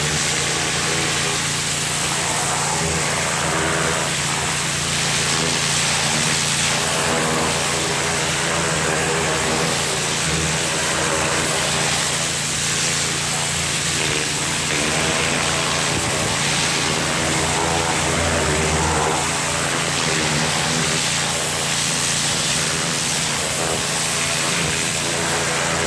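Gasoline-engine pressure washer running under load, its high-pressure water jet spraying with a steady loud hiss over the engine's drone.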